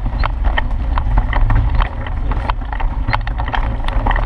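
Child's tricycle rolling along: a loud steady rumble from the wheels, with irregular clicks and rattles.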